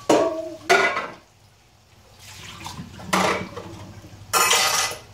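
A blue plastic colander and a pot knocking twice in a kitchen sink, then short rushes of water as the ramen noodles' cooking water is poured off through the strainer, the longest rush near the end.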